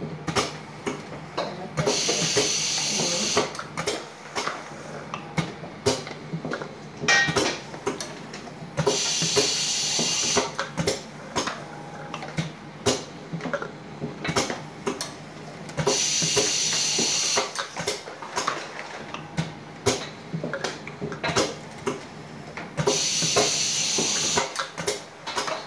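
Pneumatic ice cream cup-filling machine cycling. A hiss of air about a second and a half long comes four times, about every seven seconds, one cycle per cup. Metallic clacks and knocks of the mechanism and cups fall in between.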